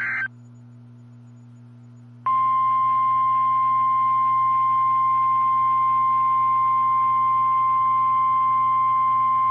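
NOAA Weather Radio warning alarm tone: a single steady high beep near 1050 Hz that starts about two seconds in and holds, announcing a warning broadcast, here a tornado warning. Before it, a very short burst of SAME data tones at the very start, then a faint radio hum.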